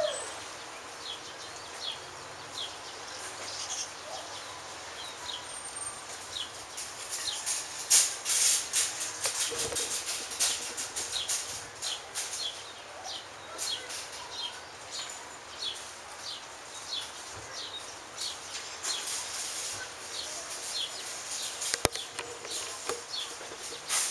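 Small bird chirping over and over in short, high, falling notes, with scattered clinks and rattles; the loudest clatter comes about eight seconds in.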